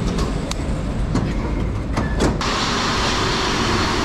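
Paris Métro station noise: a low rumble with a few sharp clicks, then, from about two and a half seconds in, a loud steady hiss and rumble of a Métro train at the platform.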